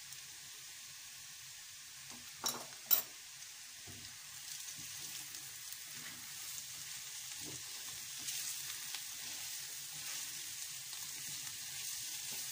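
Sliced champignon mushrooms sizzling in butter in a frying pan, stirred and scraped with a silicone spatula; the sizzle grows louder from about four seconds in. Two sharp knocks about two and a half seconds in are the loudest sounds.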